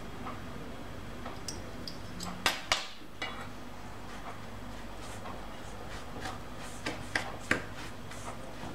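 Metal spoons stirring damp biscuit crumbs in a stainless steel bowl, clinking and scraping against the steel, with sharp clinks about two and a half seconds in and again around seven seconds in, over a steady low hum.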